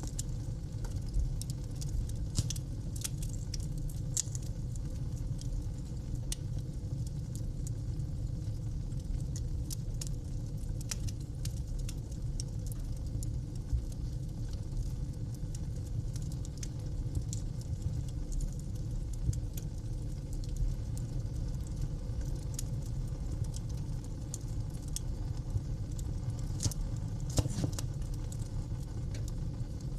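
Wood fire burning in a fireplace: a steady low rumble of flames with frequent irregular crackles and pops. A few louder pops stand out, around a second in, about four seconds in, and near the end.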